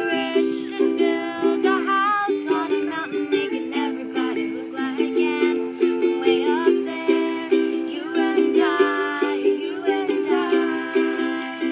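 Ukulele strummed in a steady rhythm, with two young women's voices singing along.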